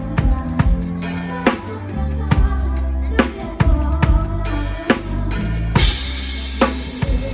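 Drum kit played live in a mor lam band, with kick, snare and rimshot strokes over a held bass line that changes note every second or so.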